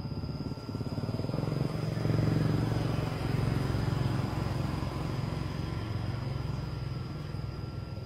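A motor vehicle's engine running nearby, a low steady hum that grows louder about two seconds in and then slowly fades.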